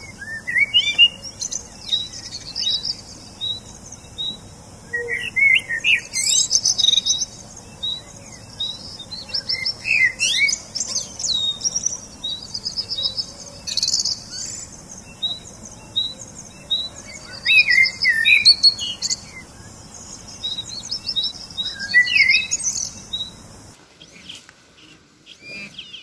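Several small songbirds singing in woodland: a quick repeated high note running under fuller chirping song phrases every few seconds. The birdsong cuts off suddenly near the end.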